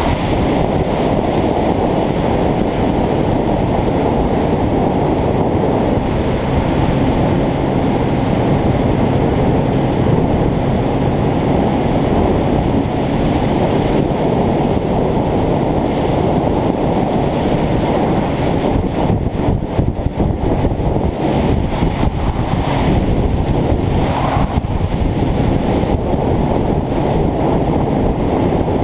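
Heavy wind buffeting on the microphone of an action camera riding at road speed, a loud steady rumble with engine and road noise underneath. The roar eases and flutters briefly about two-thirds of the way through.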